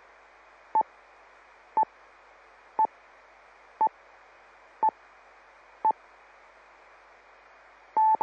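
Received audio from an FM amateur radio repeater: a steady hiss with a short beep about once a second, six times, then a longer broken tone starting just before the end.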